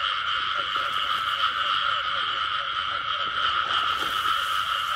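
Dense breeding chorus of rice-field frogs calling after the season's first rains. It is a steady, unbroken high-pitched din, with many short individual croaks over it.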